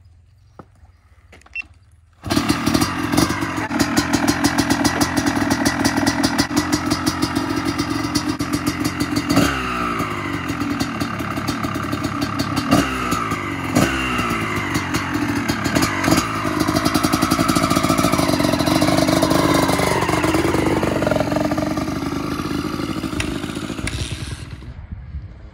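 Honda CR250R two-stroke single-cylinder engine in a three-wheeler conversion comes in abruptly about two seconds in, then runs with a fast crackling pulse and repeated revs, its pitch rising and falling. It dies away near the end.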